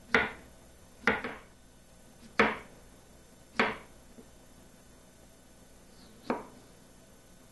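Kitchen knife slicing through a peeled raw potato and knocking on a wooden cutting board: five sharp cuts about a second apart, with a longer pause before the last.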